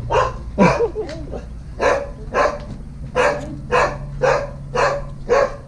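A dog barking repeatedly in greeting, about two barks a second, with a steady low hum underneath.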